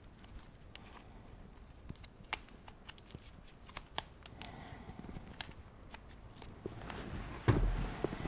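Gloved hands twisting a bundle of wires together and wrapping it in electrical insulating tape: faint rustling and scattered light clicks, with a louder knock near the end.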